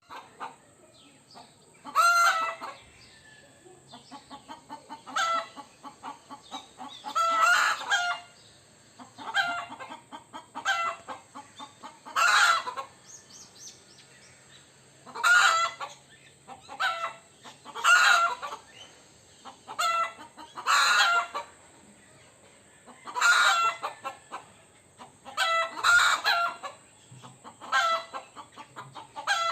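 Rooster giving alarm calls to warn the flock of danger: loud, harsh calls repeated every one to three seconds, with runs of quick low clucks between them.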